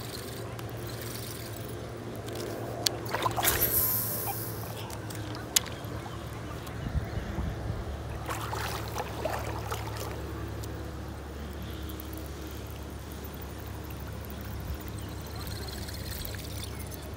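Water splashing and trickling as a surface fishing lure is reeled back across a pond, with a few sharp clicks and knocks from handling the rod.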